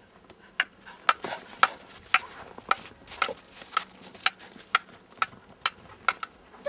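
Footsteps crunching in snow, about two steps a second, evenly paced.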